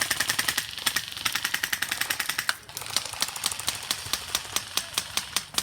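Airsoft gun firing full-auto in rapid bursts: a short burst, a longer one from about a second in, then a long continuous burst from about three seconds in.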